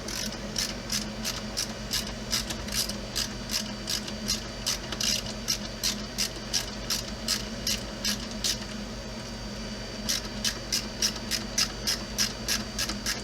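A screw being driven in by hand, with a steady run of sharp clicks about three or four a second that pauses briefly partway through.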